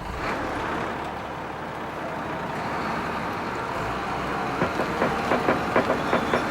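A bulldozer's diesel engine running steadily, with a run of sharp metallic clanks in the last two seconds.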